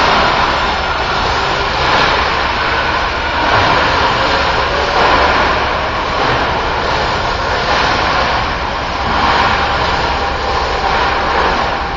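Stretch film unwinding off a roll on a pole-mounted hand pallet wrapper as it is pulled around a tall load, a continuous rasping hiss that swells and eases every couple of seconds.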